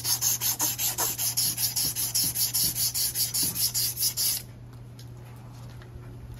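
Strip of abrasive cloth pulled back and forth around a small engine's metal output shaft, shoe-shine style, to clean and dress the shaft: a fast, even rasping of about five strokes a second that stops suddenly about four seconds in.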